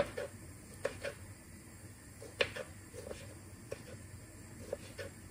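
Kitchen knife cutting cherry tomatoes on a wooden cutting board: irregular sharp taps of the blade hitting the board, often in quick pairs, about ten in all. The loudest are at the very start and about two and a half seconds in.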